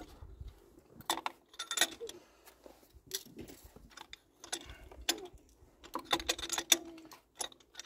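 Metal hand tools clinking and clicking: a ratchet wrench with an extension and spark plug socket being handled and turned in a spark plug well, in irregular sharp clicks.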